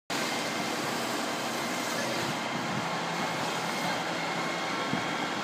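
Steady rushing noise of a burning car being sprayed with a fire hose, over the steady running of a fire engine, with a faint steady whine above it.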